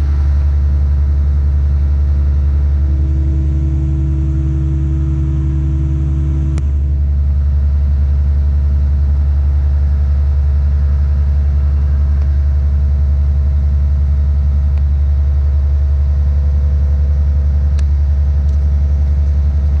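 Tadano 180G-5 crane's diesel engine running steadily, a deep even drone heard from inside the operator's cab. A higher hum joins it about three seconds in and cuts off with a click about six and a half seconds in.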